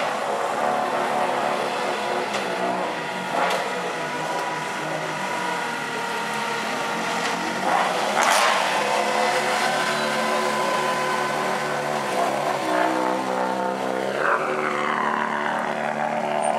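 Subaru Impreza WRC rally car's turbocharged flat-four engine running steadily at low revs as the car creeps along, with its note shifting slightly near the end. A sharp crack rings out about eight seconds in and a shorter one about fourteen seconds in.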